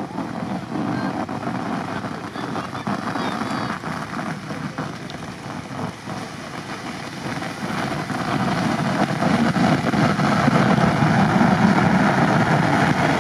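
Jeep Wrangler Unlimited creeping through deep snow, its engine running and growing louder from about eight seconds in as it comes close.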